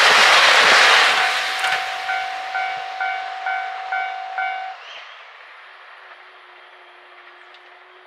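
A passing diesel train's rushing noise dies away over the first second. A level crossing alarm keeps ringing in a steady repeating ding about twice a second, then cuts off suddenly about five seconds in as the crossing clears.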